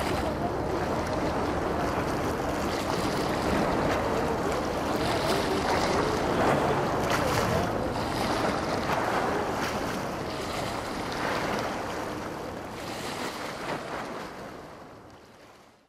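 Waterfront ambience of wind on the microphone over a steady rushing of water, fading out over the last couple of seconds.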